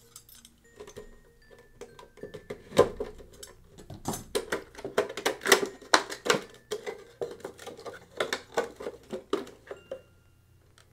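Hands unpacking an acrylic tray from its packaging: a busy run of crinkles, clicks and light knocks, starting with a sharp knock about three seconds in.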